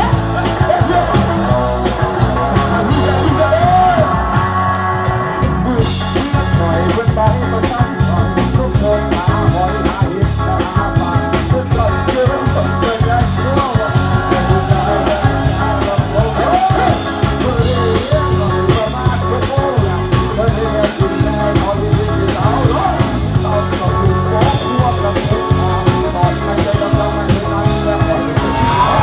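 Loud music with a singing voice over a steady driving beat, in a rock style.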